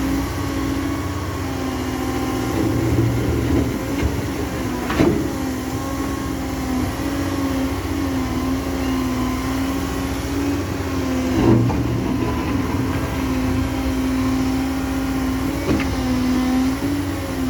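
CAT M315F wheeled excavator's diesel engine running steadily at working speed, its pitch wavering slightly, with three sharp knocks spread through.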